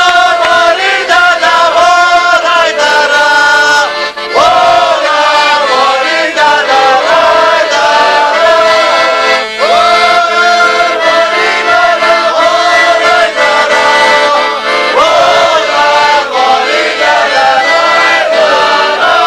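Group of men singing a folk song to accordion, in long held phrases that break off every few seconds.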